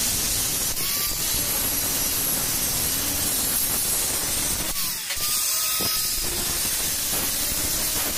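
Angle grinder with a thin cutting disc running under load, cutting through a square steel tube with a steady hissing whine. The sound changes briefly about five seconds in.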